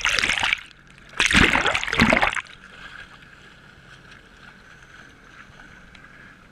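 Water splashing and rushing over a handheld GoPro twice in the first two and a half seconds, then a lower steady hum of the jet ski's engine.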